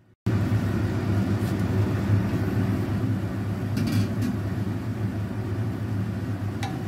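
Steady low hum of a kitchen fan running over the stove, with a few light clinks about four seconds in and again near the end as the wok lid is taken off and a wooden spatula touches the pan.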